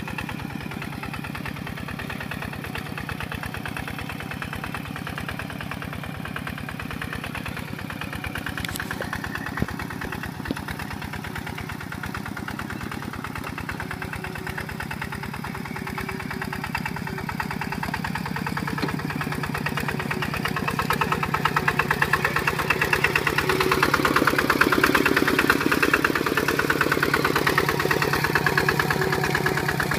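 Single-cylinder Kubota RT140 Plus diesel engine of a two-wheel walking tractor running steadily under load while pulling a plough through mud, with a fast, even chugging beat. It grows louder from about halfway through and stays loud.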